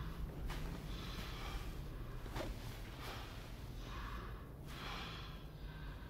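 A man's heavy, noisy breaths, a few hissing inhales and exhales, over a low steady rumble.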